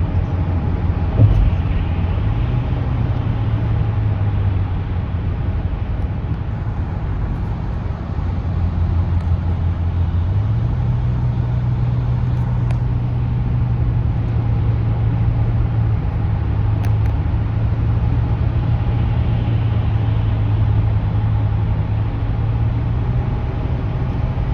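Car on the move: a steady low engine and road drone whose pitch steps up a couple of times, with a brief knock about a second in.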